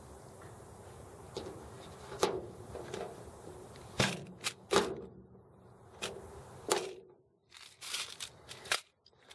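Sharp clicks and cracks from a long-handled lever rivet gun setting a closed-end aluminum blind rivet in an aluminum boat hull, about nine in all, the strongest near 2, 4 and 5 seconds in. Among them the steel mandrel snaps off as the rivet sets.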